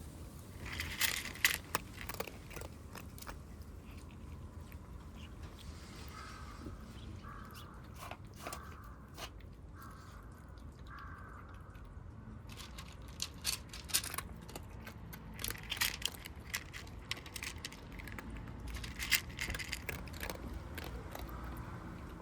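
Kittens crunching and chewing dry cat food, heard as irregular clusters of sharp crunches and clicks.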